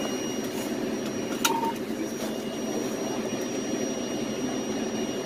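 Fire truck engine running steadily, heard inside the cab. About a second and a half in there is one sharp click with a short beep.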